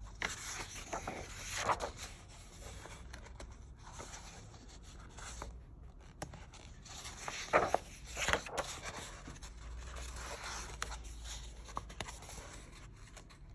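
Large paper pages of a colouring book being handled and turned, with several short rustles and swishes. The loudest come about two seconds in and again around seven to eight seconds in.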